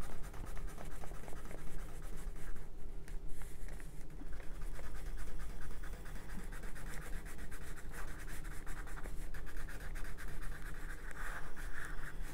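Wax crayon scribbling on paper in quick, continuous strokes: a steady scratchy rubbing.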